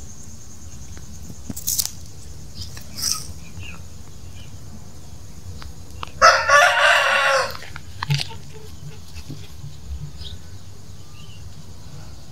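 A rooster crowing once, about six seconds in, a loud call lasting about a second and a half, with a few short faint calls before and after it.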